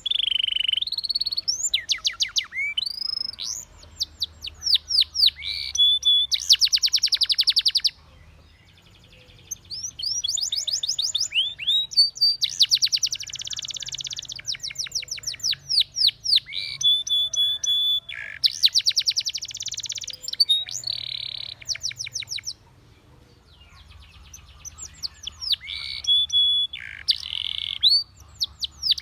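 Spanish Timbrado canary singing: a long run of fast rolled trills, quick rising notes and short held whistles, high-pitched and loud, with a brief pause about 8 seconds in and another about 22 seconds in.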